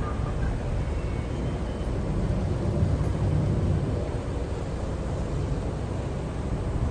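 Steady low rumble of a river ferry under way, with wind buffeting the microphone.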